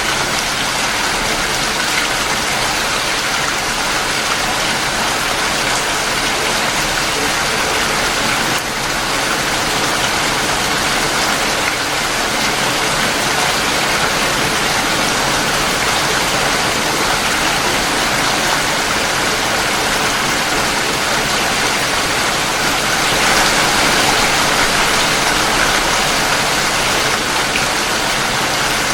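Steady, heavy rain falling as an even, dense hiss, briefly swelling a little louder about two-thirds of the way through.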